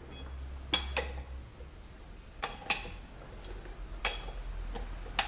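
Metal hand tools clinking and tapping on the engine's valve gear during a valve clearance adjustment, several short sharp clinks a second or two apart.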